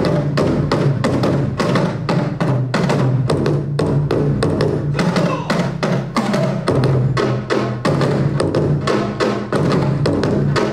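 Korean traditional drum ensemble, a large standing drum (daego) and sets of barrel drums (buk), played with sticks in a fast, dense rhythm. A deep low drum tone comes in right at the start.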